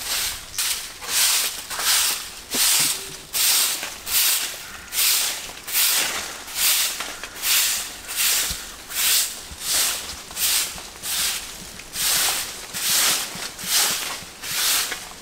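Long-handled broom sweeping bare dirt ground in steady, rhythmic strokes, a little under two swishes a second.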